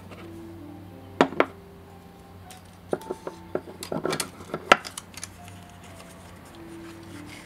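Hard clicks and knocks of a 35mm film cassette being handled and set into the plastic chamber of a Lloyd's daylight bulk film loader: two sharp clicks about a second in, then a cluster of knocks and rattles a little after the middle.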